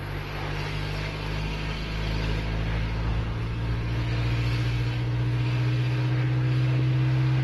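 Car engine running, heard from inside the cabin: a steady low drone over road or cabin noise that grows gradually louder.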